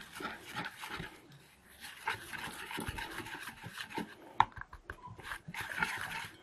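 Wire whisk stirring powdered sugar and water into icing in a stainless steel bowl: a rhythmic scraping and swishing, with a sharp clink of the whisk against the bowl about four seconds in.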